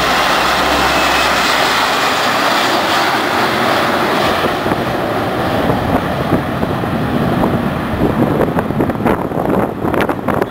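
Four-engine Airbus A340-313 jet airliner passing, a loud broad engine noise whose high hiss fades after about four seconds as it moves away. Wind gusts on the microphone near the end.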